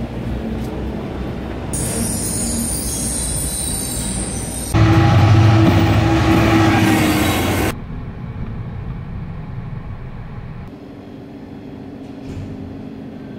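Short cuts of different background sounds. The loudest, about five seconds in, is a diesel locomotive passing close by for about three seconds: dense rumble and rail noise with a steady low drone. It cuts off abruptly.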